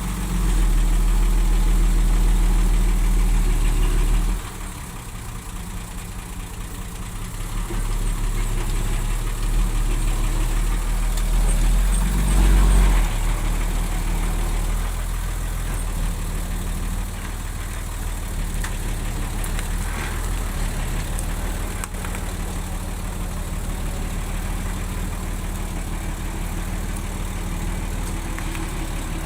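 Heavy construction machine's diesel engine running, louder for about the first four seconds, then dropping, swelling briefly again around twelve seconds in, and settling to a steady run.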